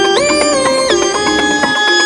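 Background music: one long held note slides up in pitch and then back down over a low bass, a break in the track's quick plucked, percussive rhythm, which returns near the end.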